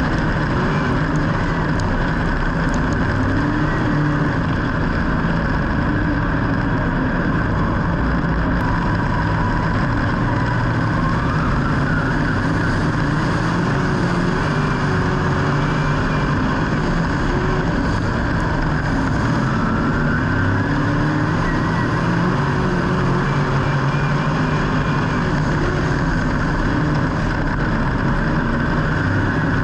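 Several car engines running at once over a steady din, their pitches rising and falling as they rev and ease off.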